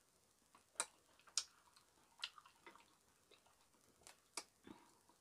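Faint, irregular light clicks of metal chopsticks and spoon against a soup bowl while eating, about half a dozen in all.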